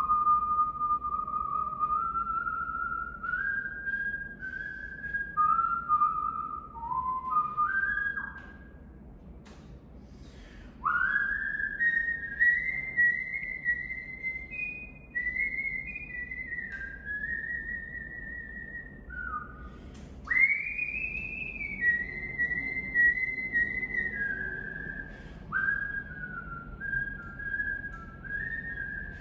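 A person whistling a slow, wandering tune. The notes step and slide into one another, with swooping rises into the higher notes, and there is a short break about nine seconds in.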